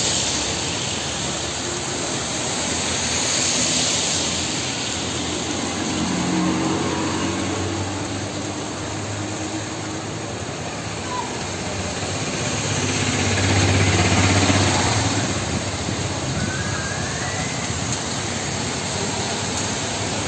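Heavy rain pouring down on a city street, with cars driving past on the wet road, their engines and tyre hiss swelling and fading; the loudest pass comes about two-thirds of the way through.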